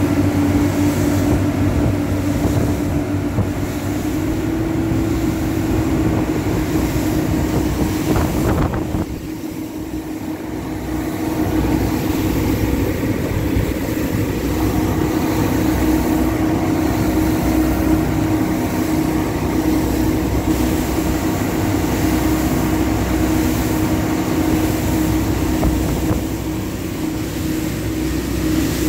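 Three outboard motors running together at speed: a steady engine drone over rushing wake water and wind noise. The sound dips briefly about nine seconds in, then comes back to the same level.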